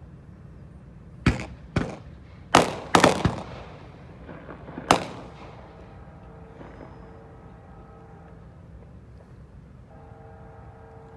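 A series of about six sharp bangs over some four seconds, some in quick pairs, each trailing off in an echo. From about six seconds in, a faint steady horn-like tone of several pitches sounds on and off.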